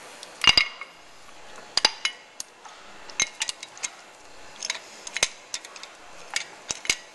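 Scattered metal clinks and taps as a brake caliper piston retractor, a steel bar with a threaded screw, is fitted against an old brake pad in the caliper; the loudest clink comes about half a second in.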